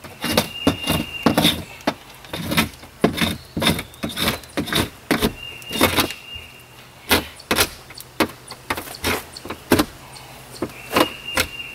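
Clicking, scraping and knocking as a tool pries at a camper's metal window frame, working it loose from its silicone seal, with a thin high squeak three times.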